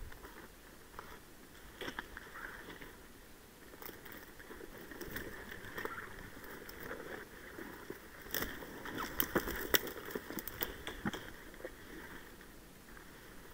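Dry scrub rustling and twigs snapping as a person pushes through the brush on foot, with a cluster of sharper snaps a little past the middle.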